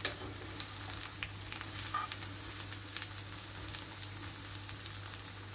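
Beef entrecôte steaks frying in butter with chopped onion and garlic in a pan: a steady sizzle with scattered crackles.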